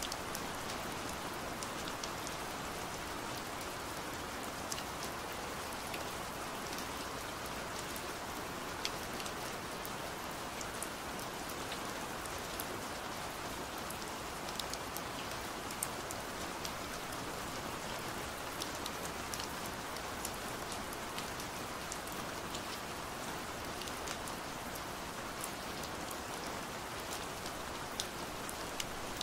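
Steady rain falling on a window: an even hiss with frequent sharp ticks of single drops striking the glass.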